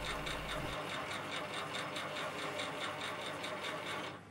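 Sieg SC4 mini lathe running steadily with a light ticking about six times a second while a zero-flute countersink chamfers the end of a turned bar. The sound cuts off near the end.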